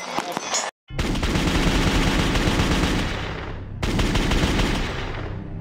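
Rapid automatic gunfire: a long sustained burst starting about a second in, a brief break, then a second burst that fades away.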